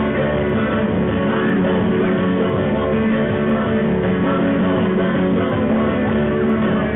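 Live band music led by a strummed acoustic guitar, playing steadily.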